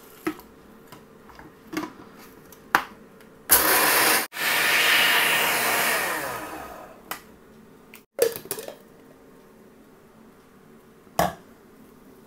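Electric blender's small grinding jar grinding mixed melon seeds to a fine powder in two runs: a short pulse of under a second, then a longer run of about two and a half seconds that winds down as the motor stops. Short clicks and knocks come before and after, as the jar is handled on and off the motor base.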